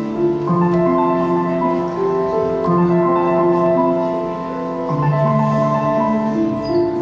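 Instrumental music with slow, sustained chords that change every second or two.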